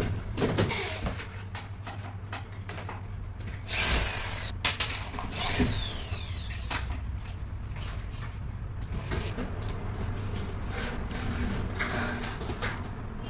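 Large PVC ceiling panel being pushed up and slid along a metal ceiling frame by hand: scattered knocks and clicks, with two longer sliding scrapes about four and six seconds in. A steady low hum runs underneath.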